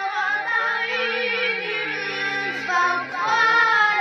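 A boy reciting the Quran in the melodic, chanted tajweed style, his voice holding long notes and ornamenting them with wavering turns.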